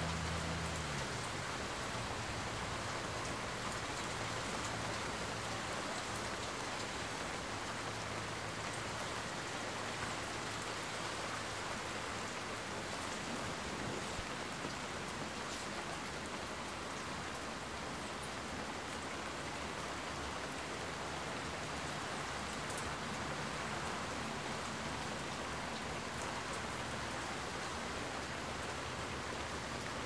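Steady rain falling, with scattered drips, over a low steady hum; a stronger low hum fades out about a second in.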